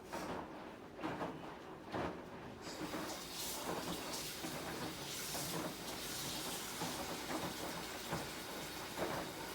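High-efficiency washing machine running, with irregular swishes and soft knocks and a steady hiss that comes in about three seconds in.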